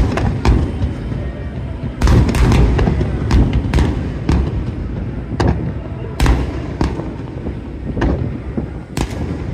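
Aerial fireworks bursting: a rapid, irregular series of sharp cracks and bangs over a continuous low booming rumble, thickening into a dense volley about two seconds in.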